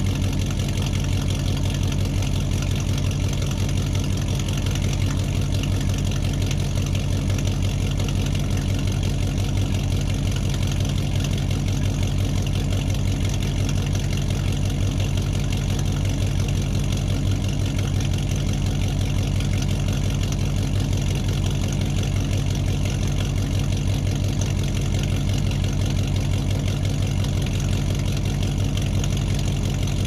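Muscle car engine idling steadily in a large room, an even low-pitched running with no revving.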